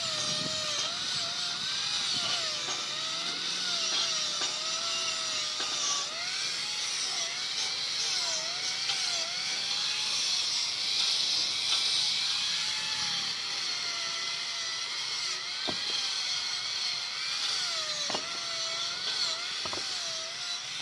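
Hand-held corded electric drill running continuously, its motor pitch dipping and rising as the load on the bit changes, over a steady hiss. A few sharp clicks come in the last few seconds.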